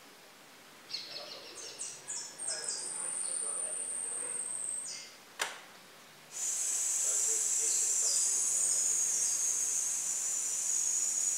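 Caged songbird practising its song: a run of quick high notes stepping down in pitch, then a thin held high note, and after a sharp click a long, loud, high trill lasting about six seconds.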